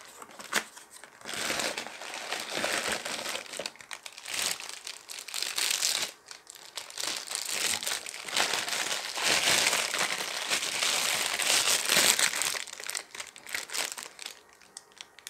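Clear plastic bag crinkling as a wrapped part is pulled out of a cardboard box and handled. It starts about a second in and comes in bouts with short pauses.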